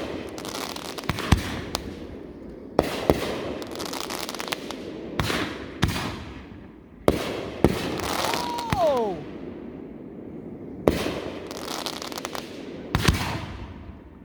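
Aerial fireworks going off: about a dozen loud bangs at uneven intervals of one to two seconds, each trailing off over a second or so.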